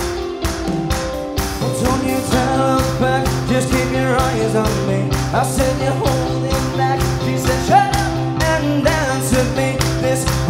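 Live pop-rock band playing with a steady drum-kit beat and keyboard, and a male lead vocal that comes in about two seconds in.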